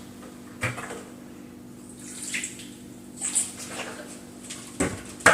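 Raw chicken leg and thigh pieces being washed by hand in water with white vinegar: intermittent splashing and sloshing.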